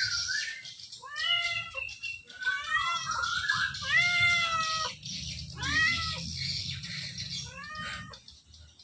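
Kitten meowing repeatedly: about five high, arching meows, each under a second long, with short gaps between them.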